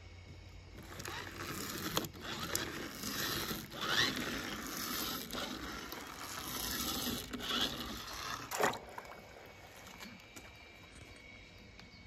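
Scraping and rustling of objects being handled and pushed over a rough surface, with a few sharp knocks, dying away near the nine-second mark.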